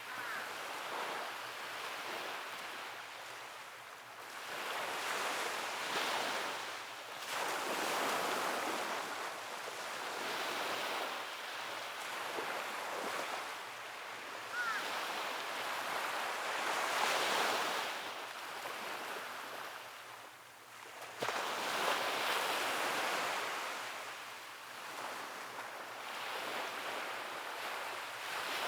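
Ocean waves breaking and washing up on a shore, the surf swelling and fading every few seconds, with a sharper wave break about three-quarters of the way through.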